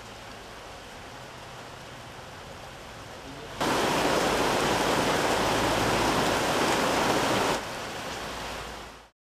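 Heavy rain pouring down, a loud steady hiss that starts abruptly a few seconds in. It drops to a softer hiss and then cuts off to silence near the end. Before it there is only a faint steady hiss.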